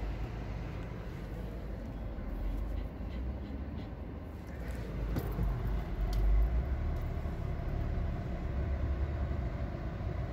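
Steady low road and engine rumble inside the cabin of a car moving slowly in motorway traffic, swelling slightly about halfway through.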